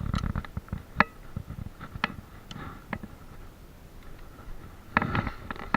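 Scattered light clicks and knocks, roughly one a second, then a louder rustling thump about five seconds in: a revolver being handled and holstered while the shooter makes ready.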